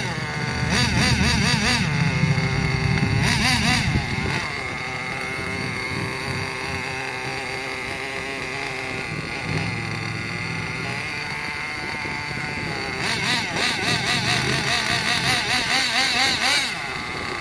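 Team Magic B8JR 1/8-scale nitro buggy engine running with a wavering pitch, revved over the first few seconds, settling to a steadier idle, then blipped quickly again near the end.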